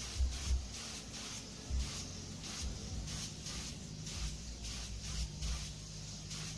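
Paint spray gun hissing in short, rapid bursts, about three a second, as pure thinner is fogged over the edge of fresh clearcoat to blend it into the old paint. A low, uneven rumble runs underneath.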